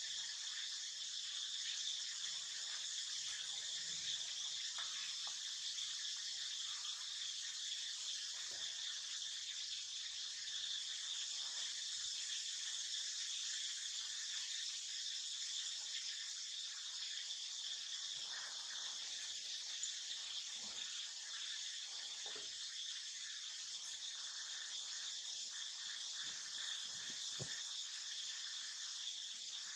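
Steady insect chorus: a continuous high-pitched buzzing drone of many insects, with a few faint clicks and rustles in the second half.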